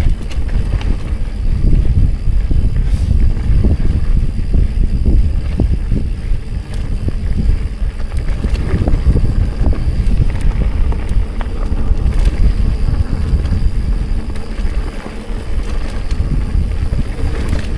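Wind buffeting the bike-mounted camera's microphone as a loud, steady low rumble, with faint scattered clicks and rattles from a mountain bike rolling over a rocky dirt trail.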